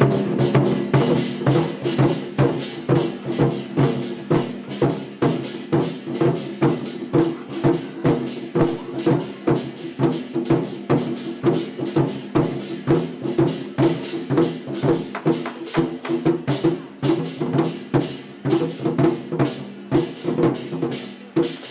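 Chinese war drums (zhangu) played by a drum troupe, beating a fast, steady rhythm of about three strokes a second.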